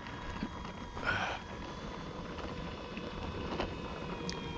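Electric motor and propeller of an E-flite Air Tractor RC plane whining steadily at low throttle while taxiing, the pitch dipping slightly near the end. A brief hiss about a second in.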